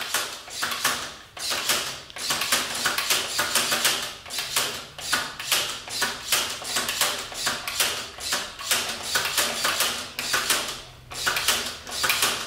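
Plastic clicking and clacking from a Fantastic Gymnastics toy, its controls pressed over and over to swing the gymnast figure around the bar. There are a few clicks a second, with brief pauses about a second and a half in and near the end.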